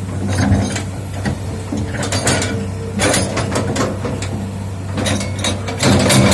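Hitachi hydraulic excavator's diesel engine running steadily, with repeated metallic clanks and knocks from the working machine, more frequent near the end.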